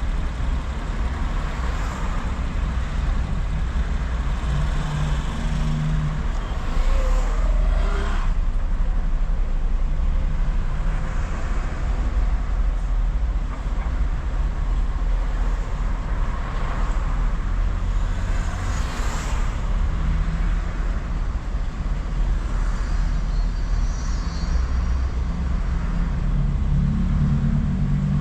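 Inside a car's cabin while driving through city streets: steady engine hum and road rumble, its pitch shifting now and then, with a few brief swells of traffic noise.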